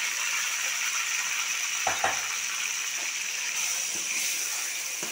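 Marinated liver sizzling as it fries in hot oil with onions in a pan, a steady hiss. A metal ladle knocks against the pan twice, about two seconds in, with lighter knocks after as it is stirred.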